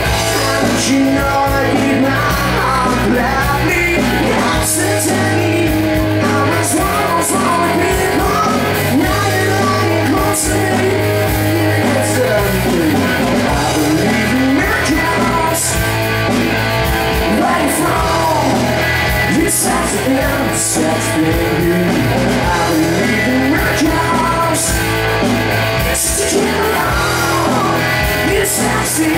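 Live rock band playing loudly through a PA: electric guitar, electric bass and drum kit with cymbal hits, with singing over it.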